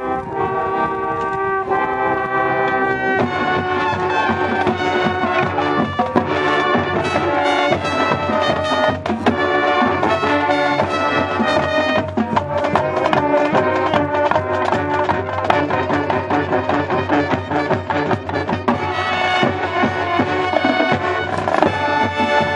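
High school marching band playing, brass with drumline. A held brass chord opens, then about three seconds in the music turns busier, with steady drum strikes under the brass, and near the end a new held chord comes in.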